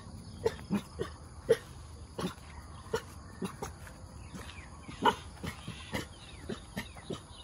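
Dogs giving short, scattered barks, one or two a second, the loudest about five seconds in, over a steady high insect drone.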